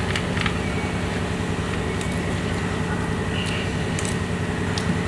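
Steady low background hum with a few faint, scattered clicks as the car's scissor jack is set in place under the lift point.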